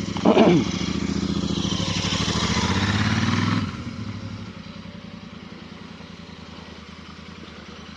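Motorcycle engine running, its revs rising for about three seconds and then dropping back to a steady idle, with a brief falling tone right at the start.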